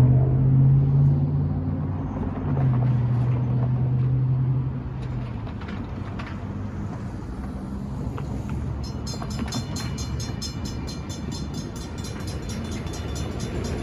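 Diesel locomotive engine running with a strong low hum that drops back to a steady rumble about five seconds in. From about nine seconds, a rapid, evenly repeating high ringing comes in over the rumble.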